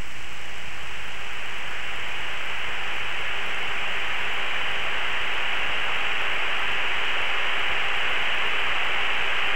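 Steady radio-static hiss on a T-45 jet trainer's cockpit radio and intercom audio, holding an even level with no transmission on it.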